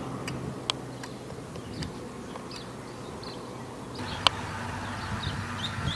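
Outdoor background noise with a few sharp clicks, the clearest about a second in and just past four seconds, and some faint high chirps.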